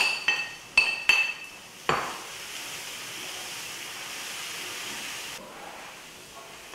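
About five sharp, ringing clinks in the first two seconds as a ceramic plate and spoon knock against a frying pan while grated coconut is tipped in, then a spoon stirring the coconut into hot caramelised sugar with a soft sizzle that stops about five seconds in.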